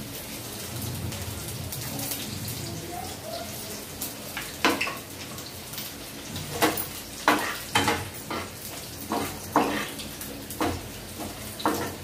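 Chopped garlic sizzling in hot oil in a frying pan. From about four seconds in, it is joined by repeated sharp clinks and scrapes of metal utensils against the pan and containers as the garlic is stirred.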